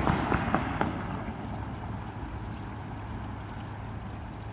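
A car drives close past, its tyre and engine noise at its loudest at the start and fading over the next second, with a few short clicks. Then steady road and wind noise.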